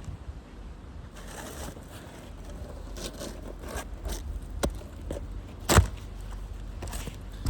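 Asphalt shingle being pried and pulled up off a roof, with scraping and crackling as its sealant strip tears loose, and one sharp crack near the end. The seal tearing takes the shingle's mat with it (mat transfer), the sign that the shingle cannot be repaired.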